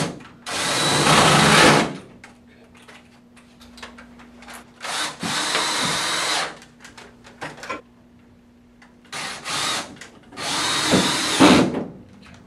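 Cordless drill driving hex-head sheet-metal screws through a pine board into a metal ceiling grid. It runs in several spurts of about a second each, the motor whining as it spins, with short pauses between screws.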